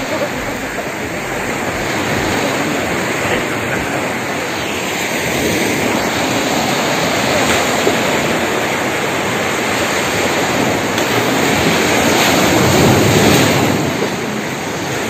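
Ocean surf breaking and washing up the beach, a steady rush of water that swells a little near the end.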